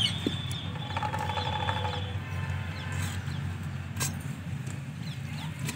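A few light clicks of a metal spatula against the clay pot of a matka tandoor, one sharp click about four seconds in, over a steady low background rumble.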